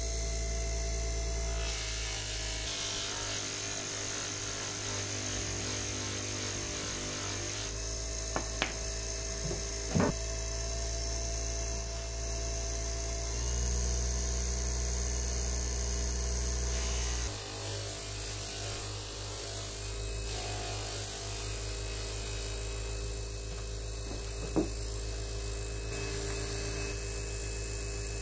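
Bench polishing and buffing motor running with its buffing wheel spinning, a steady hum whose note shifts a few times. A few sharp clicks or knocks stand out over it, two of them about a third of the way in and one near the end.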